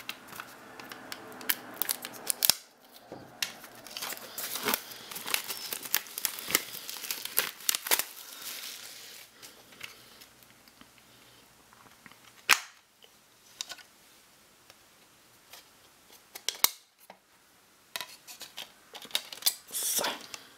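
Plastic shrink-wrap foil being slit with a small knife and peeled off a DVD case, a dense run of crinkling and scratching. After that come scattered sharp clicks and snaps of the plastic case being handled, with a quick cluster of clicks near the end as the case is opened.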